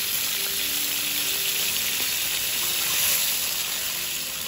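Freshly poured soy-based teriyaki sauce sizzling steadily in a hot frying pan with sliced onions. Near the end a wooden spatula stirs it through the sauce.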